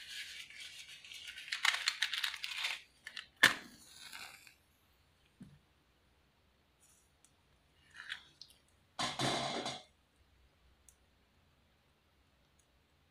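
Handling noises while a small alcohol lamp is lit: rustling and scraping, one sharp click about three and a half seconds in, and a second, roughly one-second scraping burst about two-thirds of the way through.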